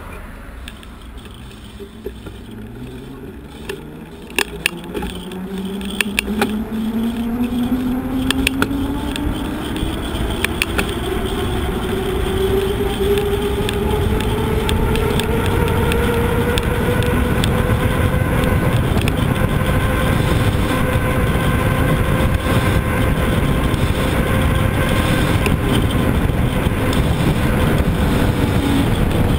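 A vehicle setting off and gathering speed: a whine rising smoothly in pitch for about fifteen seconds and then holding steady, under a rush of wind and road noise that grows louder with speed. A few sharp clicks as it gets going.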